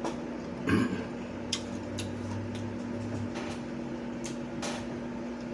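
A steady low appliance hum, with a few faint clicks of chewing and lip smacks and one short louder sound just under a second in.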